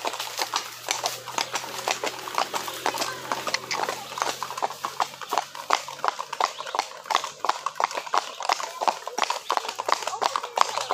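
Hooves of several ridden horses clip-clopping on a paved road, a quick, uneven patter of many overlapping hoofbeats, heard from the back of one of the horses.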